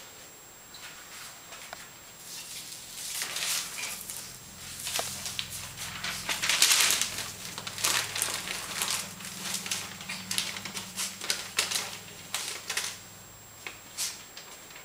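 A puppy chewing and tearing a glossy paper magazine: irregular crinkling and ripping of paper. It is busiest in the middle and thins out near the end.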